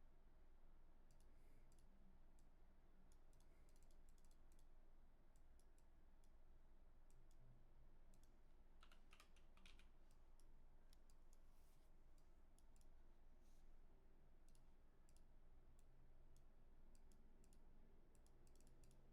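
Near silence with faint, scattered computer clicks, mouse and keyboard, as a digital card game is played.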